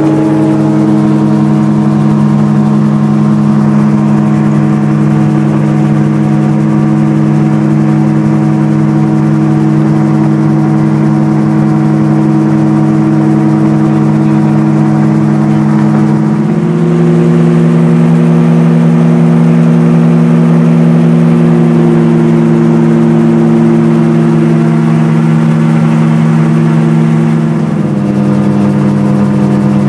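RAF 2000 gyroplane's engine and propeller running steadily in flight, a loud drone. Its pitch rises slightly about halfway through as engine speed goes up, and drops back near the end.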